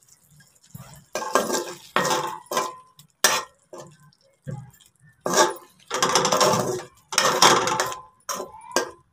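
Steel spoon scraping and knocking against an aluminium pot as chicken pieces are stir-fried in oil, in irregular strokes with short knocks between.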